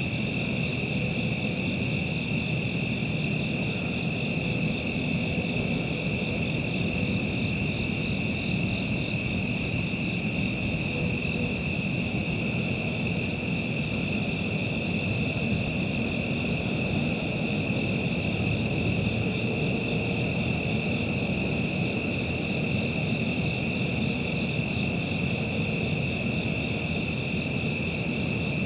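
Steady night chorus of crickets and other insects, several high trills holding at a constant pitch, over a continuous low rumble.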